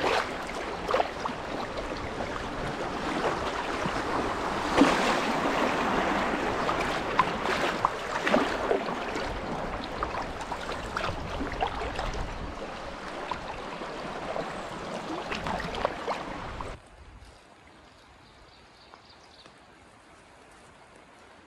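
Rushing water of a river riffle around a canoe, with scattered sharp splashes from the wooden paddle. About 17 seconds in it drops abruptly to a faint hush.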